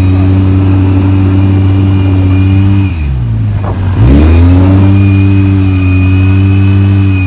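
Quad bike engine running at steady high revs. About three seconds in the revs drop as the throttle is let off, then climb back up about a second later as it is opened again.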